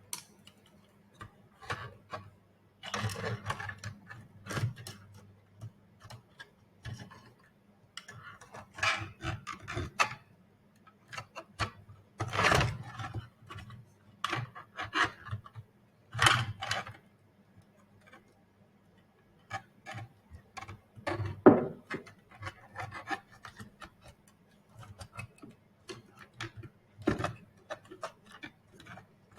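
Robot head parts being handled and pushed into place: irregular bouts of rubbing and scraping with clicks and knocks, separated by short pauses, with one sharper knock about two-thirds of the way through.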